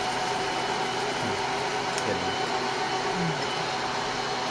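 Kaleido Sniper M10 coffee roaster's cooling-tray fan running, drawing air through freshly roasted beans: a steady rush of air with a faint steady whine.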